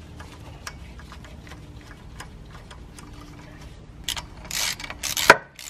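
Ratchet wrench clicking faintly as the bolts of a VW engine's crankshaft pulley are turned, followed by rustling and one sharp click about five seconds in.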